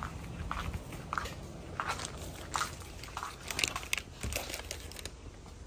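Footsteps crunching at an even walking pace, then a brief run of quicker, irregular crunches and clicks about three to four and a half seconds in.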